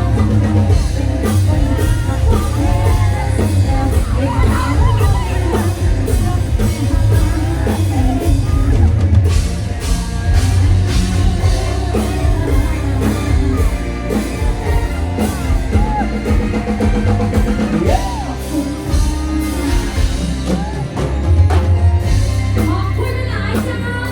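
Live band music with a singer over heavy bass and a drum kit, played loud through a stage sound system.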